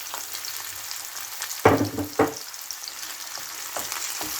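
Mixed seafood sizzling in olive oil in a frying pan as it is stirred, with two loud knocks about halfway through.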